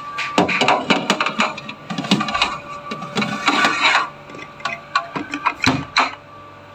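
A foil-wrapped chicken on a metal baking tray being slid into a Panasonic NU-SC100W steam oven: foil crinkling and the tray clattering and scraping on the oven rack. About six seconds in, a heavy thud as the oven door shuts.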